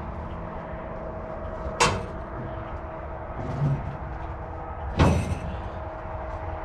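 Two loud, ringing sheet-metal bangs about three seconds apart, with a duller thump between them, as the stripped 1968 Dodge Charger body shell is pushed against the stock car chassis and roll cage it is being test-fitted over. Under them a skid steer engine idles steadily.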